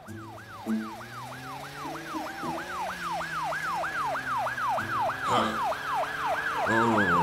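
Cartoon police car siren wailing in a fast rise-and-fall, about three sweeps a second, growing louder as the car approaches.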